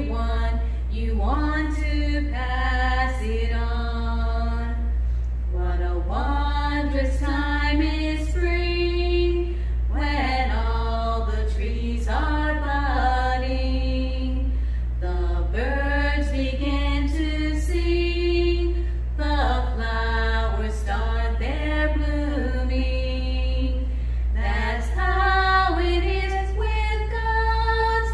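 Two women singing a song together without accompaniment, over a steady low hum.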